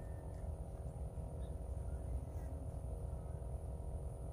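Quiet background noise: a low steady rumble with faint hum and a thin, high steady whine, and no distinct event.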